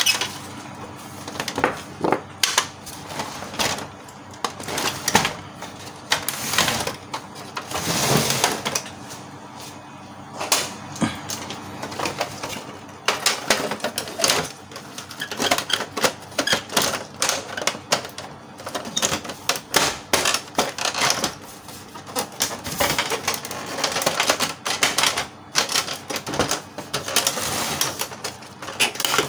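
Plastic casing parts of a Canon MP287 inkjet printer being handled and pressed back together, with irregular clicks, knocks and rattles.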